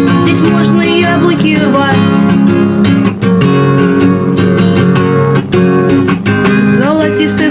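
Acoustic guitar strummed in steady chords, with a young woman's singing voice coming in at times, on a home dictaphone demo recording.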